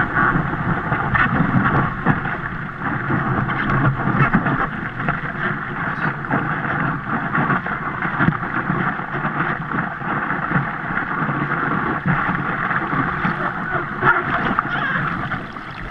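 Whitewater rushing and splashing around a surfboard as it rides a broken wave, with wind buffeting the microphone, heard from a camera mounted on the board's nose.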